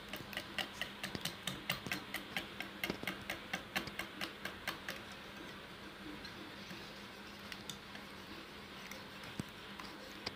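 Wire hand whisk beating eggs and sugar in a bowl, its wires clicking against the bowl's side about three to four times a second. About halfway through the beating eases off, leaving only a few scattered clicks.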